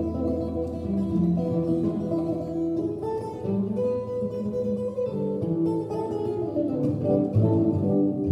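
Solo archtop guitar played as an instrumental: chords and a moving melody over low sustained bass notes.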